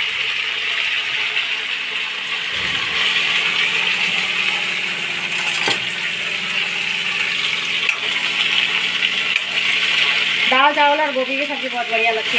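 Chopped cabbage sizzling as it fries in a kadhai, with a steady hiss and a metal spatula clinking against the pan as it is stirred; one sharp knock about halfway through.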